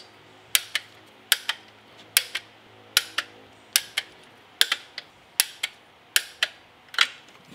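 Ratcheting torque wrench working the upper intake manifold bolts down. Sharp metallic clicks come mostly in pairs, with a new pair about every 0.8 seconds.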